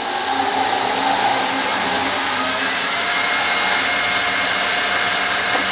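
Wood lathe spinning a used wine cork in a keyless drill chuck while a turning tool squares off its end: a steady rushing noise with a faint whine.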